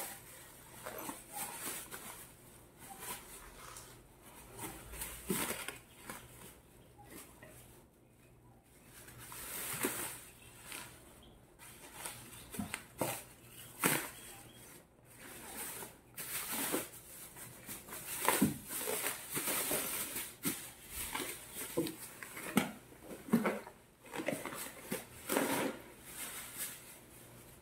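Clear plastic packaging crinkling and rustling in irregular bursts as it is handled and pulled off a new backpack.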